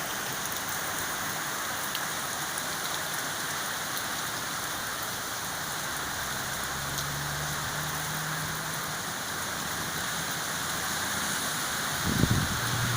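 Heavy rain falling steadily in a thunderstorm, with a brief low rumble of a wind gust on the microphone near the end.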